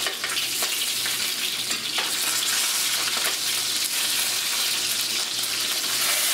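Italian sausages sizzling steadily in a hot frying pan, with occasional light clicks of metal tongs against the pan as the links are turned.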